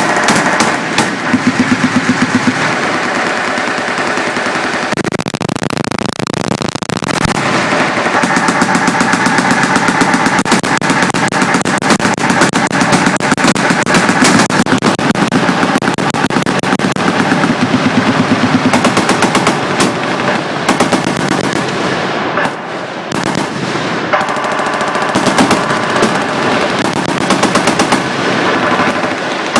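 Many machine guns firing at once, their overlapping bursts forming nearly continuous automatic gunfire.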